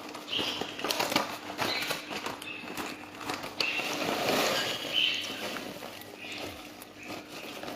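Microwave popcorn being handled: the paper bag rustling and crackling, with many small irregular clicks of popped kernels.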